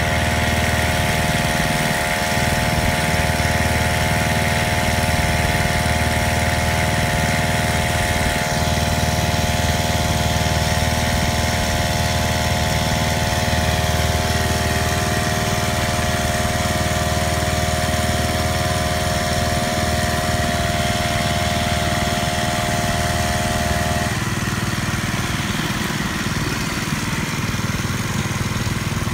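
Small brush-cutter engine running steadily, driving a homemade water pump fitted to the end of its shaft that draws canal water through a hose. A steady whine rides over the engine and stops about four-fifths of the way in.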